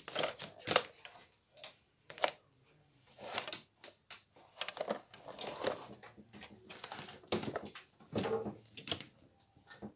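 Close rustling of clothing and irregular knocks and clicks of someone handling things right next to the phone's microphone, in a quick uneven run.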